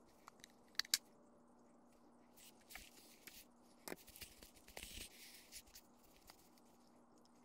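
Faint handling noises as hands work a drill's housing and a cloth wipe: two sharp clicks about a second in, then light rustling and scraping of cloth and parts, over a faint steady hum.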